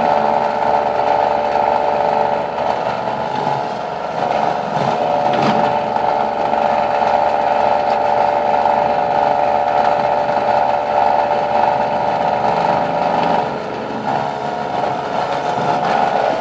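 Benchtop drill press motor running at a steady pitch while its bit drills into a wooden block. The sound dips briefly a little before the end.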